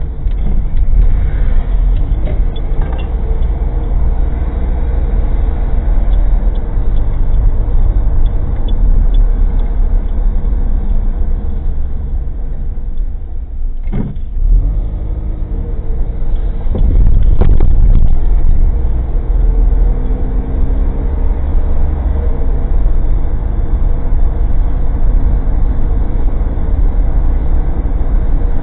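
Engine and road noise of an old Suzuki Jimny kei car driving, heard from inside the cabin through a cheap dashcam, with rattling from the body and fittings. There is a sharp knock about halfway through, and the noise grows louder and rougher for a moment soon after.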